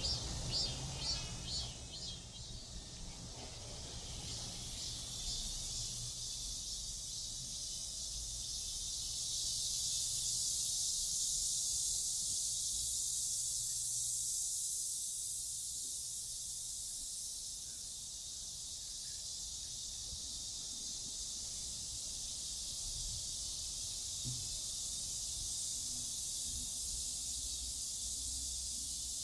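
Cicada chorus: a steady, high-pitched shrill drone that grows louder about a third of the way in and eases off past the middle, over a faint low rumble.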